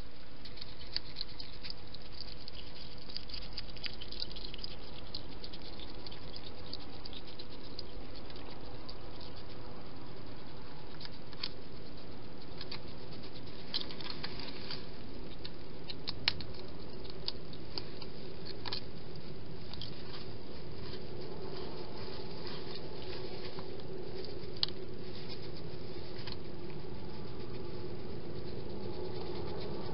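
A wild hedgehog foraging at a garden feeding station: scattered light clicks and patters, the sharpest about 16 seconds in and again near 25 seconds, over a trail camera's steady hiss and faint hum.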